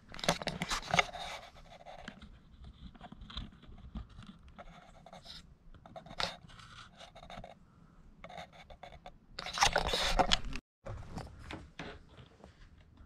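Tin snips crunching and scraping through a dirt bike's plastic rear fender in short, irregular bursts. The loudest stretch of cutting comes about ten seconds in.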